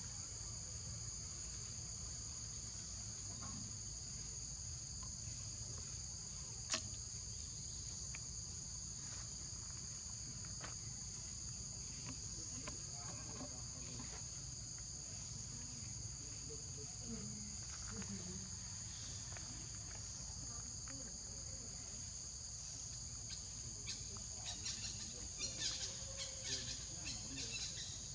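Insects droning steadily at a high pitch, with a low rumble underneath. A single sharp click about seven seconds in, and scattered clicks and rustles near the end.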